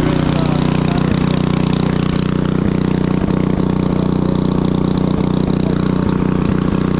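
Craftsman snowblower engine running at a steady idle after a cold start, with a few light clicks scattered through.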